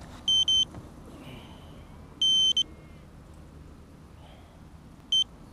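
Short, high electronic beeps, all on one pitch, from a small beeper on the FPV quadcopter or its camera: two quick beeps, a longer beep with a short one after it about two seconds in, and one more near the end. Under them is a low, steady background rumble.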